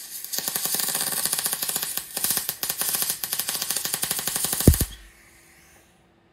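MIG welding arc crackling: a fast, steady run of pops and sizzle as a bead is laid on steel. The arc stops about five seconds in.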